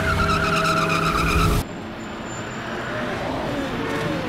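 Car tyres squealing in a burnout, a loud high screech that cuts off suddenly about a second and a half in. After it a car engine runs more quietly, its pitch rising and falling.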